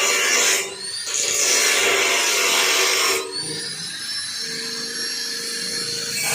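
Angle grinder cutting metal: loud grinding for the first three seconds, with a short dip about a second in. Then a lighter stretch where the disc whines with a rising, then steady, pitch, before it bites in loudly again near the end.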